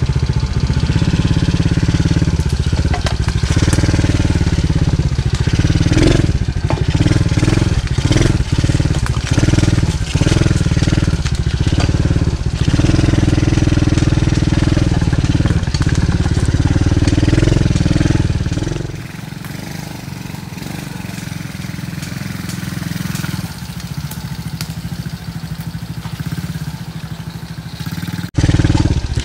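Small 110cc four-stroke single-cylinder dirt bike engine, a TaoTao DB14, running under throttle as the bike is ridden over a rough dirt trail, with frequent knocks and rattles. About two-thirds of the way through it turns quieter and thinner, heard from farther away.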